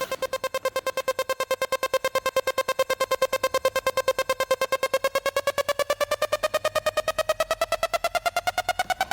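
Electronic pulsing tone, about ten beeps a second, holding one pitch and then slowly rising in pitch over the last few seconds.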